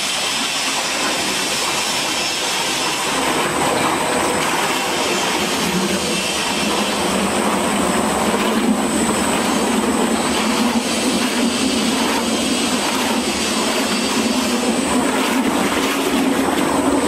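LZ-1500L open dual-shaft mixer running: the high-speed dispersers and anchor agitator churn and splash a clear liquid in the stainless steel vessel, beating it into froth. Their steady motor noise carries a thin high whine, and about six seconds in a low hum rises and holds.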